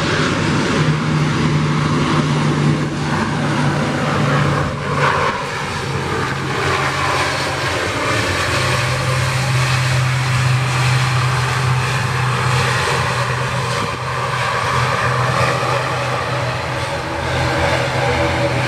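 ATR 42-600 turboprop airliner taxiing, its twin Pratt & Whitney PW127 engines and propellers running with a steady low hum over a dense rushing noise.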